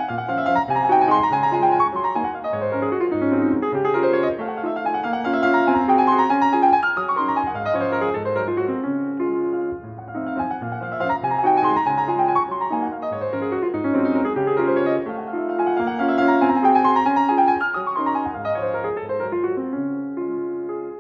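Piano music: flowing runs of notes over a lower bass line, continuing without a break.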